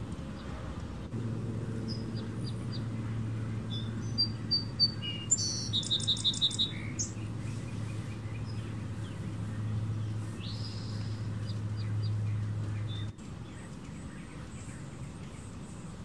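Hummingbirds giving short high chips and a quick buzzy chatter around the feeders, busiest a few seconds in. A steady low hum runs underneath from about a second in and stops abruptly a few seconds before the end.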